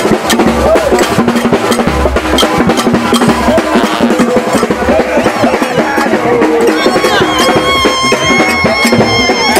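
Marching brass band with drums playing: a bass drum beating steadily about twice a second under snare-drum rolls and horns. About seven seconds in, a high note is held to the end.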